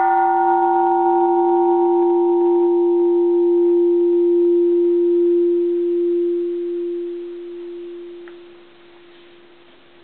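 Bronze Japanese Buddhist temple bell, cast in 1625, ringing out after a single strike. It gives a steady deep hum with higher overtones that fade within the first few seconds. The hum wavers slightly as it dies away, drops off sharply near the end and lingers faintly.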